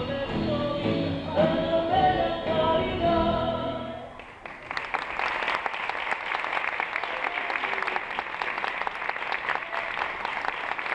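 An Argentine folk song with singing ends about four seconds in, and audience applause follows, steady to the end.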